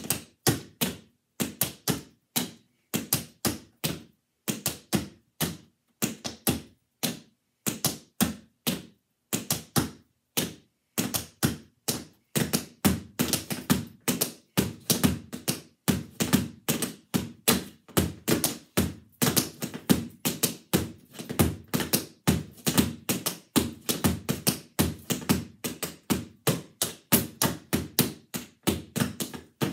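Tap shoes striking a practice board in a solo tap routine with no music: separate rhythmic taps with short pauses at first, then from about ten seconds in, fast, dense runs of taps.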